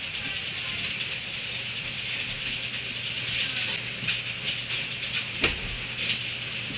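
A steady outdoor hiss with a low hum underneath, broken by a few sharp knocks in the second half as donkeys pull hay at a metal hay rack.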